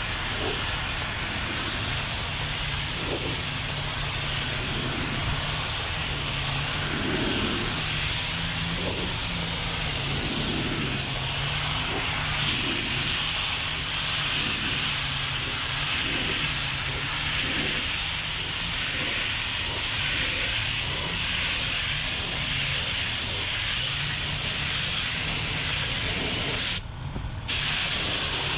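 Compressed-air spray gun hissing steadily as it sprays primer onto a car body panel. The trigger is released briefly near the end, then squeezed again.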